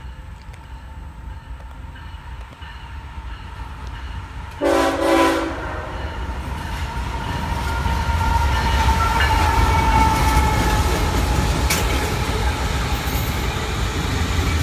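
Approaching train's rumble building up, cut by one short blast of a Nathan K5HL five-chime air horn about five seconds in; after it the rail noise of the passing train grows louder.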